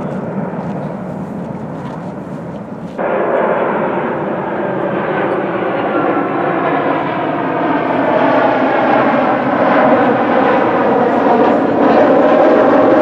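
Jet airliner passing low overhead, its engine noise growing steadily louder, with a sudden jump in level about three seconds in.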